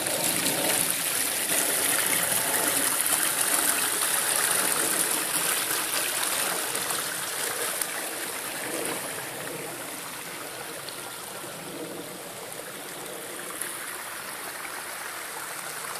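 Water running and splashing in a garden pond's recirculating waterfall, a steady rush that grows fainter from about seven seconds in.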